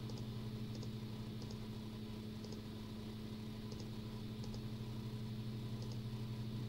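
Computer mouse button clicking repeatedly, each click a quick paired tick, about once a second, over a steady low hum.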